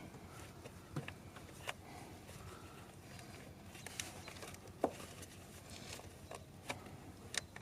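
Faint, scattered light clicks and taps of small bolts and a hand tool being handled while the bolts are backed out by hand.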